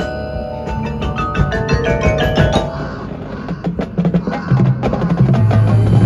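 Marching band music led by the front ensemble: mallet percussion notes and quick, sharp percussion strikes, with low bass notes coming in about four seconds in as the music grows louder.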